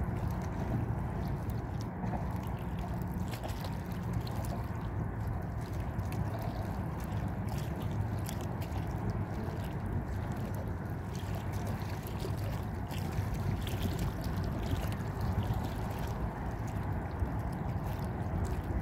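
Small waves lapping and sloshing against a boat's hull on calm sea, with a steady low rumble underneath and light splashes throughout.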